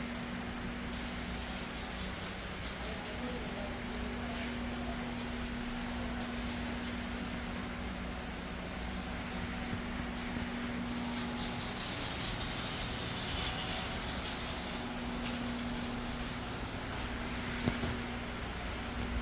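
Steady hiss with a low steady hum under it; the hum drops out for a couple of seconds about twelve seconds in, and there is a single click near the end.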